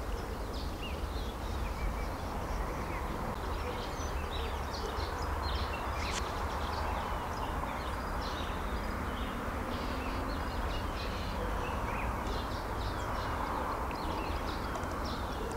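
Outdoor birdsong: many short bird chirps and calls, scattered and overlapping, over a steady low rumble and hiss.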